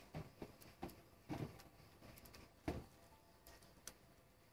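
A cat lapping water from a dish: faint, soft clicks at an uneven pace, one a little louder near the middle.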